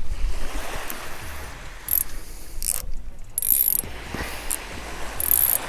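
Fishing reel being wound in after a cast, its gears clicking and ratcheting in several short spells.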